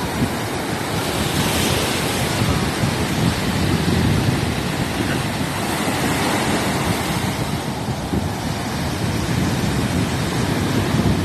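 Sea surf washing onto a beach: a continuous rush of breaking waves that swells a little about a second in and again around the middle.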